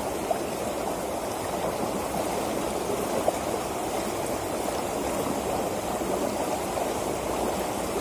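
Fast water rushing steadily along a narrow concrete-lined irrigation ditch.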